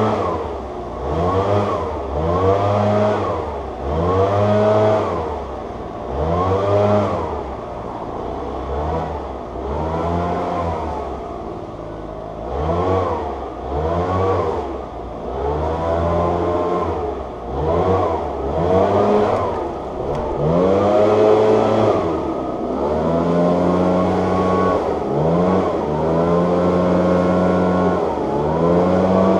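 A small engine repeatedly speeding up and slowing down, its pitch rising and falling about every one to two seconds.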